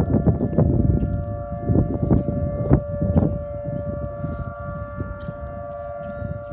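Outdoor tornado warning siren sounding a steady tone that holds one pitch. A heavy low rumble under it eases off after about three seconds.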